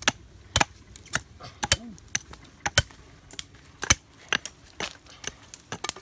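Knife blade chopping at a forked wooden branch while shaping a slingshot fork: sharp, uneven knocks about twice a second.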